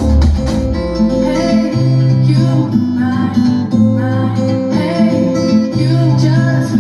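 Guitar music played back through a 60-watt portable Bluetooth speaker; the deep bass drops out a couple of seconds in.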